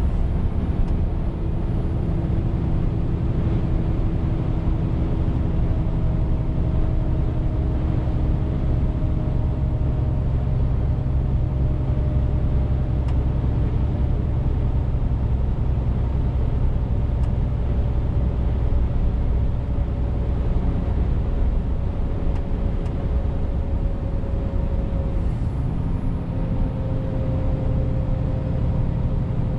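Scania R410 truck's 13-litre straight-six diesel running steadily on the road, a continuous low rumble with road noise. A faint whine slowly falls in pitch, then jumps back up near the end.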